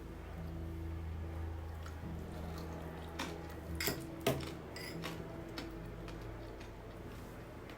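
A few sharp clicks and light taps, most of them around the middle, over a steady low hum.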